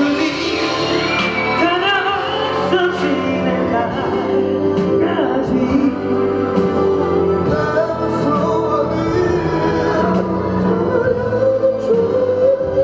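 Live pop ballad: a male singer's wavering, sustained vocal lines over an amplified backing track, picked up by a handheld recording in the audience.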